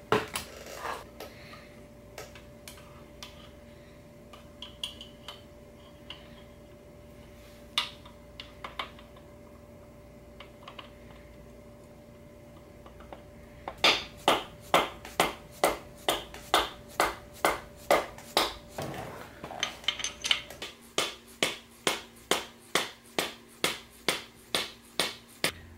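Hammer tapping a wrist pin through the side service hole of a Subaru flat-four block into the piston: a steady run of sharp knocks, about two a second, starting about halfway through, after light clicks of the pin and tools being handled.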